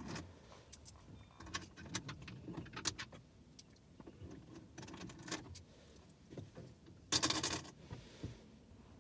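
Scattered small clicks and rattles of small objects being handled, with a short, louder rustle about seven seconds in.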